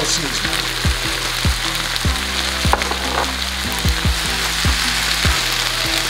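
Shrimp, diced bell peppers and onion sizzling steadily in butter and olive oil in a skillet, stirred with a silicone spatula. Under the sizzle runs background music with a low, regular beat.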